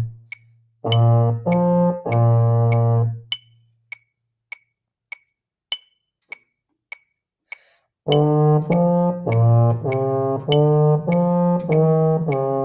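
Baritone horn playing sustained notes of a beginning-band Christmas carol arrangement over a metronome clicking at 100 beats per minute. The horn rests for about four seconds in the middle, leaving only the metronome ticks, then comes back with a run of shorter notes.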